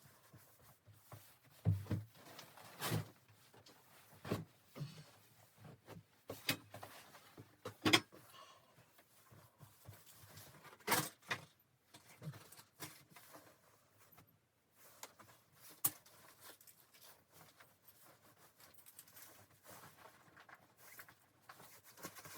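Scattered knocks, clicks and light rustles of objects being handled in a small, closed space, the loudest knock about eight seconds in.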